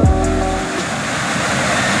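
Music stops in the first half second, and a steady rushing roar of C-17 transport jet engines fades in and grows louder.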